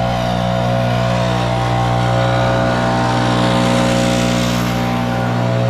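Gas-powered leaf blower running at steady throttle, its engine drone mixed with rushing air that swells for a moment in the middle.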